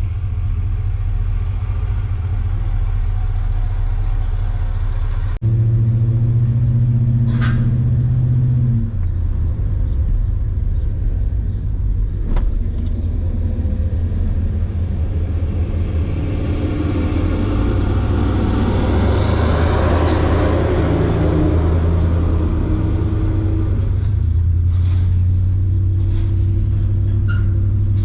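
Truck engine running while driving, heard from inside the cab, its steady low drone stepping up and down in pitch. It gets abruptly louder about five seconds in, and a rushing noise swells and fades about two-thirds of the way through.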